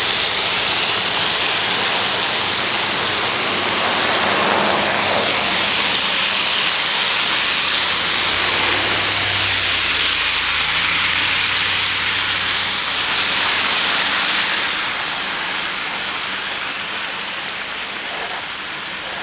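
Steady hiss of rain falling on a wet road, easing off a little near the end. About halfway through, the low rumble of a car going by on the wet pavement rises and fades.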